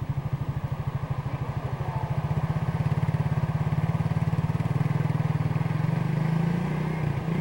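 An engine running with a fast, even throb, getting louder about two seconds in and turning smoother near the end.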